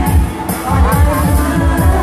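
Loud amplified stage music over the PA, with a heavy bass-drum beat and cymbal strokes about twice a second.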